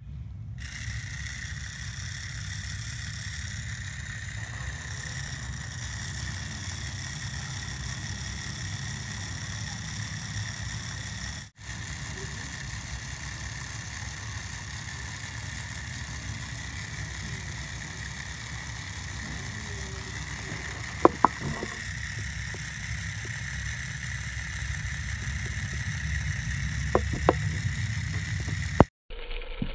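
Small electric motor of a miniature model wet grinder running steadily, turning its grinding stone in a steel drum with rice inside: a constant high whine over a low hum. A few sharp taps come about two-thirds of the way through and again near the end.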